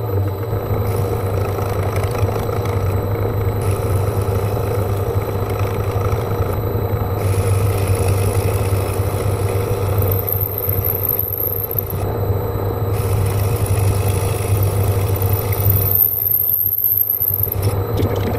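Holbrook C8 metal lathe running under power with a steady low hum while boring out the centre of a workpiece; a faint high whine comes and goes.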